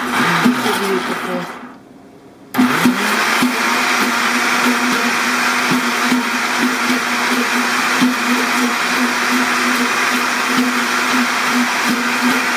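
Countertop glass-jar blender running, blending thick pesto. About two seconds in, it winds down and cuts out for under a second, then starts again and rises to a steady whir with a regular chop.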